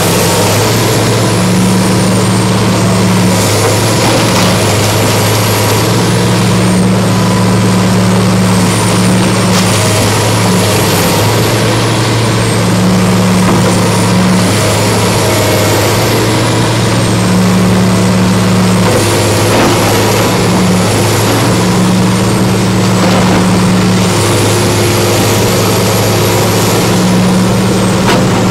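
Komatsu PC400LC hydraulic excavator's diesel engine running steadily, its note going up and down every second or two as the boom and bucket work. A faint high whine rises and falls over it.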